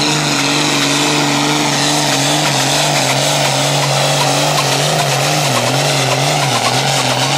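Diesel engine of a farm tractor at full load, pulling a weight-transfer sled at steady high revs. The pitch dips slightly a few times in the second half as the engine is pulled down by the load.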